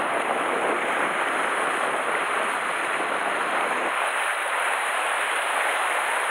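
Sea surf breaking and washing over shoreline rocks, a steady rushing noise that does not let up.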